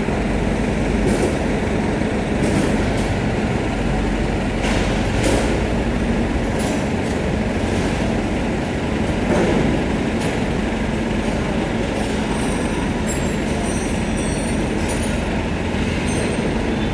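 Steady loud mechanical running noise with a low hum, broken by scattered clicks and knocks and a run of short high squeaks in the second half.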